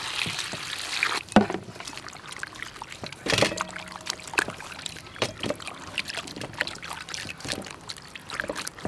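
Tap water pouring into a steel bowl of vegetables, stopping about a second in. Then hands slosh and rub the vegetables in the water, with splashes and knocks against the bowl.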